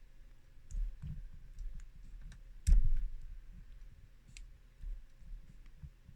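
Small, irregular clicks of a lock pick and tension wrench working the pins of a five-pin Yale Y220/51 pin-tumbler lock, with one louder click about two and a half seconds in.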